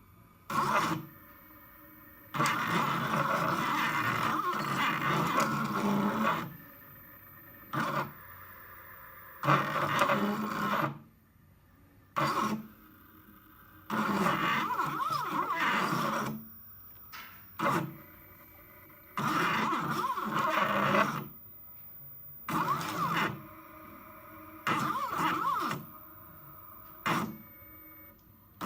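NEMA stepper motors turning the knobs of a motorized Etch A Sketch, buzzing in spurts of about half a second to four seconds with short pauses between moves as the machine traces a drawing from G-code.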